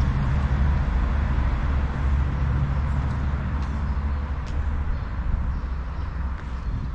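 Motor vehicle engine running steadily, a loud low rumble.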